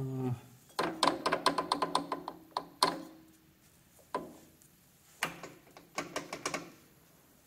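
Monarch 10EE lathe spindle worked back and forth by hand, its drive gears clacking against each other in rapid runs of metallic clicks with a slight ring, about a second in and again after about five seconds, with a single clack in between. The clatter comes from excess backlash in the spindle gear train, which the owner calls quite a bit of slop.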